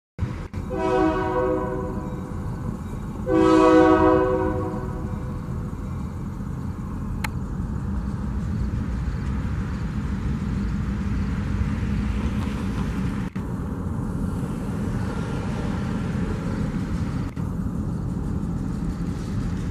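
Diesel locomotive air horn sounding two blasts for a road crossing, the second louder. A steady low rumble of the locomotive's engine and wheels follows as it rolls up to the crossing.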